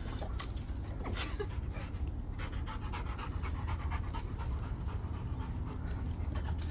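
A dog panting quickly and steadily.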